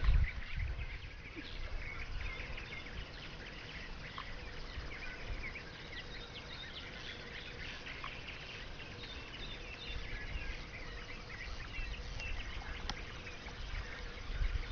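Evening lakeside chorus of many small animal calls: short, high chirps overlapping continuously. A low rumble of the microphone being handled sounds at the start and again near the end.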